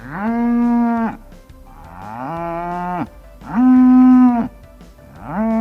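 Cow mooing: four separate moos of about a second each, every one rising briefly at the start and then held on a steady pitch, the second a little lower than the others.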